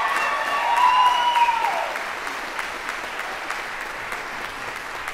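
Audience applauding. A few voices whoop, falling in pitch, over the clapping in the first two seconds, and then it settles into steady clapping.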